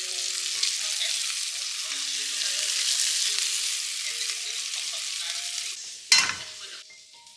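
Food sizzling as it fries in a pan, a steady hiss. About six seconds in there is a sudden loud burst, after which the sizzle falls away.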